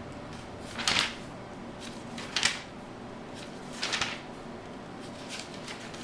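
Bible pages being turned by hand: three short rustles about a second and a half apart, with fainter ones near the end.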